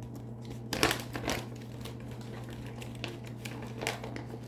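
Small packaging and paper items being handled: a cluster of crinkles and clicks about a second in and another near the end, over a steady low hum.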